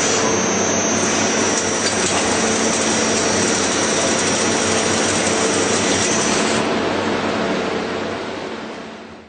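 CNC machine running: a loud, steady machine noise with a thin high whine that stops about two-thirds of the way through, the whole sound fading away near the end.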